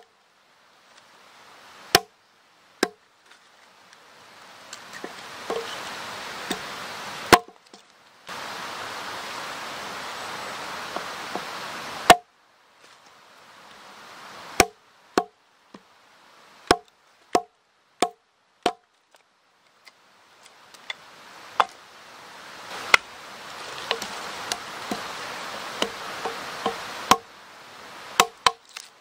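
Hatchet splitting a short round of wood on a log: repeated sharp wooden knocks, some single and some in quick runs of four or five. Behind them runs a steady background hiss that breaks off abruptly several times.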